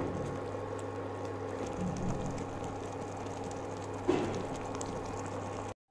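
Sugar syrup bubbling and crackling around fried gulab jamun donuts in a nonstick pan, over a steady electrical hum from the induction cooktop. There are two soft knocks, one at the start and one about four seconds in.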